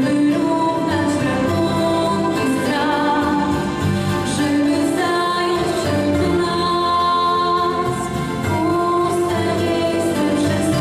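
Singing with instrumental accompaniment: a song with long held notes, at a steady level.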